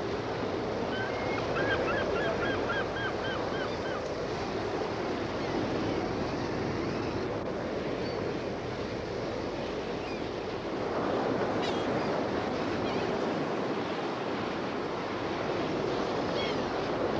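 Rough surf breaking and wind blowing steadily. About a second in, a bird gives a quick run of short calls, several a second, and there are a couple of single calls later.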